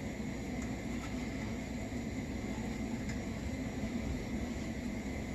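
Steady machinery hum and hiss, with a few faint light clicks as brass fittings are handled.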